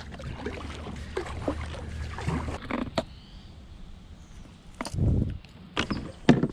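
Kayak paddling: paddle strokes splashing and dripping in shallow water, with a low wind rumble on the microphone, for the first few seconds. Then, after a quieter stretch, a few sharp knocks and thumps on the plastic kayak hull as gear is handled, the loudest near the end.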